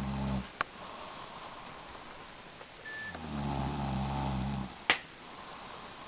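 A man snoring: one snore ends just after the start and another begins about three seconds in and lasts nearly two seconds. A sharp click follows each snore.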